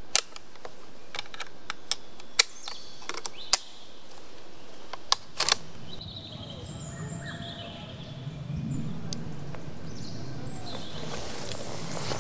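A string of sharp metallic clicks from a Browning BAR 4X semi-automatic rifle being handled at its action. About six seconds in they give way to quieter forest background with a few faint bird calls.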